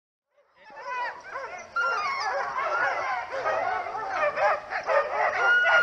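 A yard of sled dogs yipping, whining and barking together, many high calls overlapping. The sound fades in over the first second.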